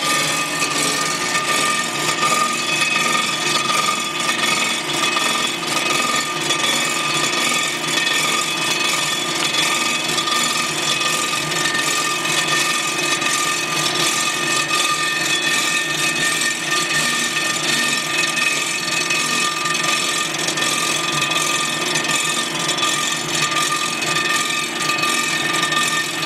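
Blockmaster 85B block surfacer running, its cutter head milling the cast-iron deck of an AMC 258 engine block: a steady cutting sound with a constant whine. It is a very light 0.002-inch decking pass, only just touching the deck and leaving a shadow across the block.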